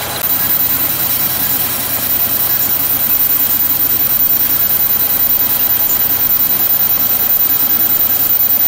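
A vertical machining centre (VMC) milling: the spindle runs and the milling cutter cuts a metal tool-holder blank, making a steady machining noise that gets louder about a third of a second in.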